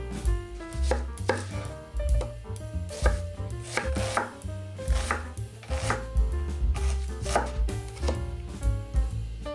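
Chef's knife chopping a red onion on a wooden cutting board: a run of sharp knife strokes, roughly one or two a second, unevenly spaced.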